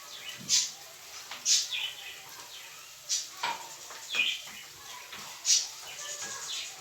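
Short, high-pitched bird chirps repeating every second or so, some sliding downward, with a few faint knocks among them.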